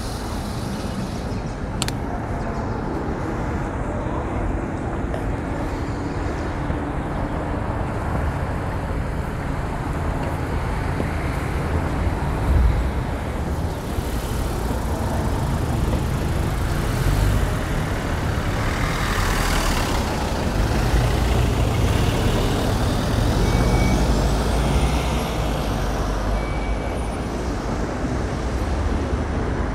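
City street traffic noise at an intersection: a steady rumble of cars and heavier vehicles passing, with one sharp click about two seconds in.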